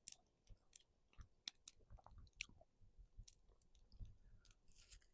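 Faint chewing: a person eating a seared pork chop, with scattered soft mouth clicks and smacks.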